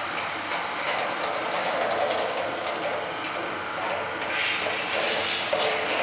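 Bucket elevator for foundry sand running steadily with a mechanical rattle. About four seconds in, a louder hiss of pouring sand joins it.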